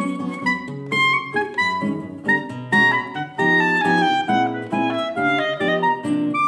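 Clarinet and nylon-string classical guitar playing a choro together: the clarinet carries a quick, moving melody over a full, chordal guitar accompaniment.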